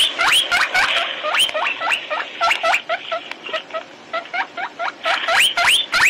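A quick series of short, high squeaks that sweep upward in pitch, about three or four a second, from a small animal.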